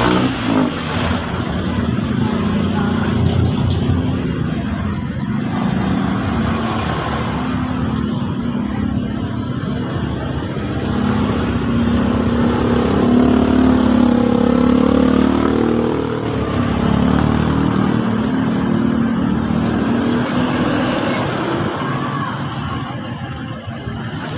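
A motor vehicle engine running steadily, its pitch rising and falling about halfway through.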